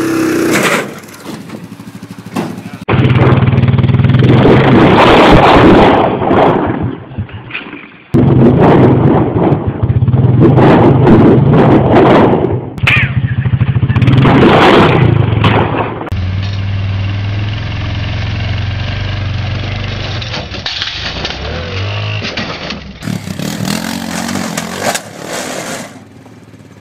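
Quad bike (ATV) engines revving hard under load in a string of short clips that cut abruptly one into the next. The revving is loudest in the first half and gives way to steadier running later.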